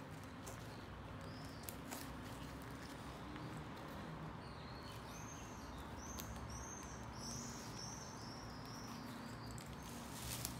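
Faint clicks and rustling from hands handling a drysuit's metal zipper and a plastic sheet. About halfway through, a bird chirps a quick run of short high notes.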